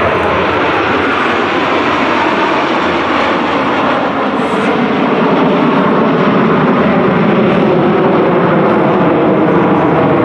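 Formation of Aermacchi MB-339 jet trainers flying overhead: steady, continuous jet noise from their turbojets, getting a little louder about halfway through.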